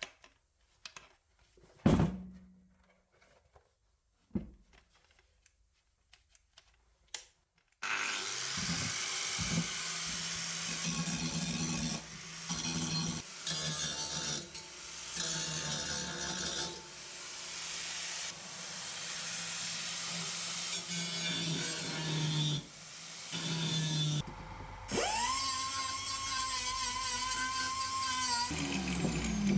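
A few handling knocks and clicks, then an angle grinder grinding tack welds flush on sheet steel in several runs with short breaks. Near the end the grinder spins up to a steady whine off the work, then winds down.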